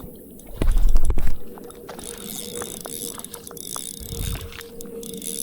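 Irregular small clicks and rattles. A loud low rumble about half a second in and a weaker one around four seconds in sound like handling knocks or wind on the microphone.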